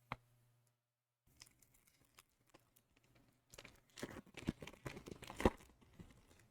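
Yu-Gi-Oh booster packaging being torn open by hand: a single click, then faint crinkling that turns into denser tearing and crinkling of wrapper plastic, loudest near the end.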